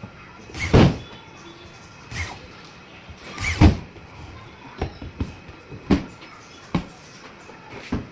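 Irregular knocks and thuds of wooden furniture parts being handled, about seven in all. The loudest come about a second in and about three and a half seconds in.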